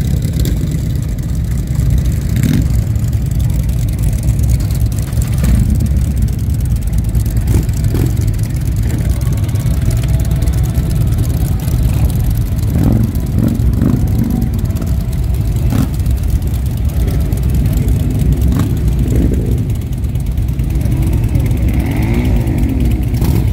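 A large group of motorcycles, mostly V-twin cruisers, running at idle together in a steady low rumble, with one engine revving up and down near the end.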